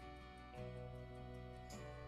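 Soft background music with sustained instrumental chords, the chord changing about half a second in and again near the end, over a light steady beat.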